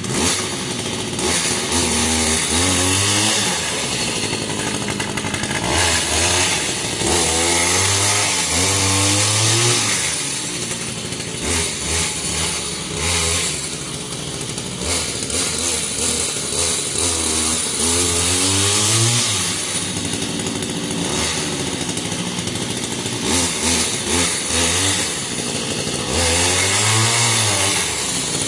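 Old chainsaw's two-stroke engine powering a homemade motorised wheelbarrow, catching right at the start and then revving up and falling back again and again.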